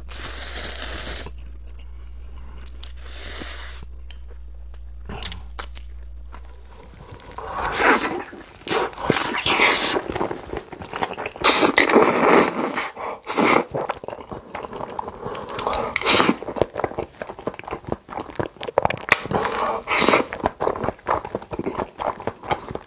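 A person slurping noodles. The first few seconds hold a few long slurps over a steady low hum. From about seven seconds in, close-miked slurping and chewing come thick and fast and much louder.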